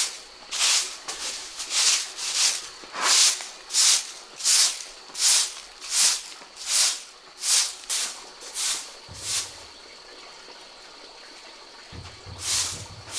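Long-handled broom sweeping a dusty concrete floor in steady strokes, about one and a half swishes a second; the strokes pause for a couple of seconds and pick up again near the end.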